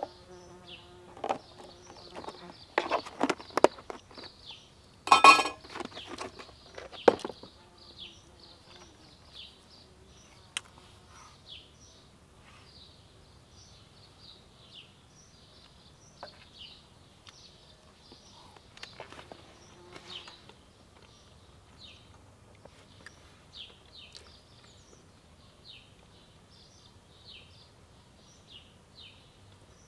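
A small bird calling over and over with short, high, falling chirps, about one a second. Over it, in the first several seconds, come a few sharp knocks and clatters of something being handled, the loudest about five seconds in.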